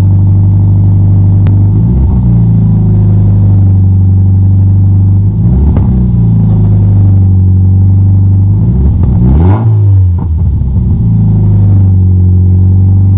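A 2014 Scion FR-S's 2.0-litre flat-four boxer engine idling loud with no exhaust system fitted, blipped three times so the pitch rises and falls back each time.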